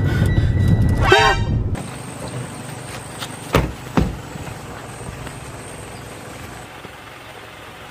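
A car engine running loud with a horn toot, cutting off under two seconds in. Then a quieter steady hiss with two sharp knocks in quick succession.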